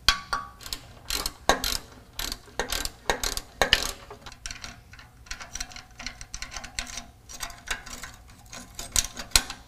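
Ratchet wrench with a 13 mm socket clicking in irregular strokes as it loosens the bolt of a factory exhaust band clamp, with metal clamp parts being handled.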